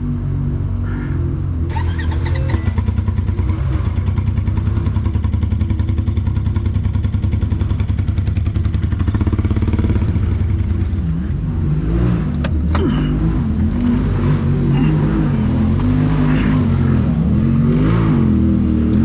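Side-by-side UTV engine running hard at high, steady revs for several seconds, then the revs rising and falling over and over. A single sharp knock about twelve seconds in.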